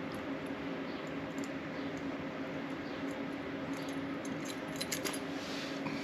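Small steel screws clinking as they are handled, with a few light metallic clicks about four to five seconds in, over a steady background hum.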